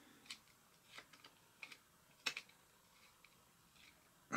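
Screwdriver working a set screw in the head of a Singer 281-1 sewing machine as it is tightened: a scatter of faint small metal clicks, the sharpest about two seconds in, and a louder knock right at the end.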